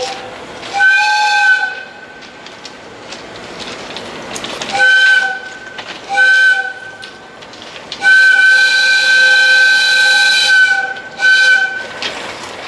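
Old electric locomotive's whistle sounding in blasts: three short toots, then one long blast of about three seconds, then a final short toot.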